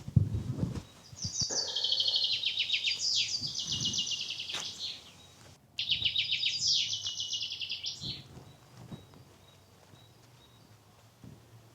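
A songbird sings two long phrases a little apart. Each phrase is a fast trill of high repeated notes stepping down in pitch. A few low thumps come at the very start.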